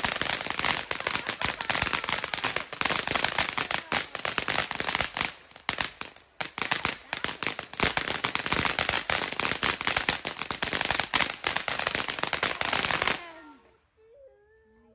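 Firecrackers going off in a rapid, crackling string of bangs, with a brief lull about six seconds in, then stopping suddenly near the end.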